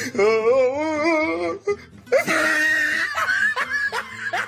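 A child's long squeal with a wavering pitch, then quick rising bursts of giggling laughter, as a dog tugs at her skirt.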